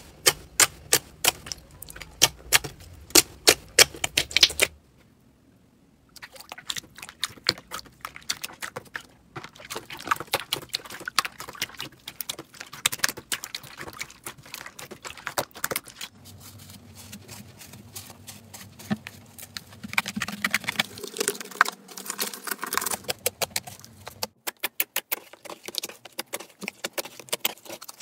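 Slime being squeezed and poked, giving rapid sharp clicks and popping crackles in irregular bursts. The sound breaks off for about a second and a half near five seconds in, then resumes.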